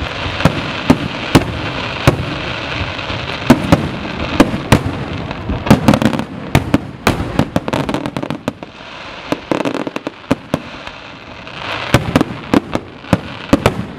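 Aerial fireworks display: shells bursting in quick succession, sharp bangs over a steady haze of noise. The bangs thin out for a few seconds past the middle, then come thick again near the end.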